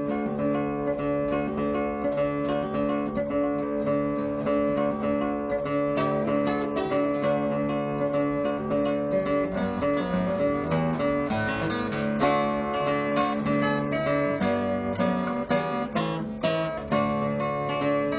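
Acoustic guitar music: plucked notes and strummed chords that ring and change steadily throughout.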